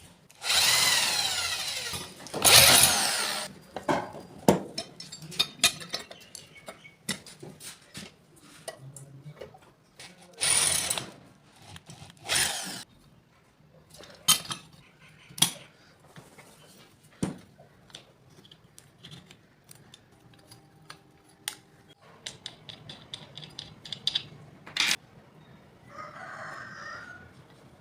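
A power tool runs in short bursts, two early on and two more about ten seconds in, working material. Between and after the bursts come many small clicks and knocks from parts being handled.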